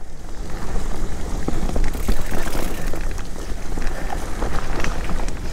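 Mountain bike rolling over a dirt singletrack: tyre noise on the dirt with the bike rattling and clicking over bumps, and wind rumbling on the microphone.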